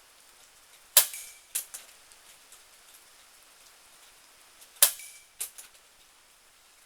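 Benjamin Marauder .22 precharged air pistol fired twice, about four seconds apart. Each sharp crack is followed about half a second later by a couple of lighter clicks. Faint rain hiss underneath.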